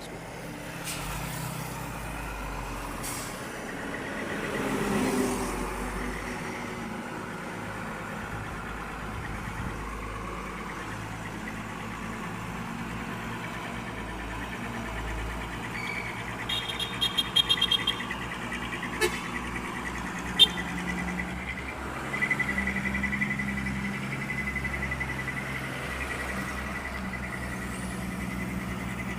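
Heavy diesel engines of the recovery work running steadily, swelling briefly about five seconds in, with a faint whine above them. Past the middle there is a short run of high beeps, then two sharp clicks.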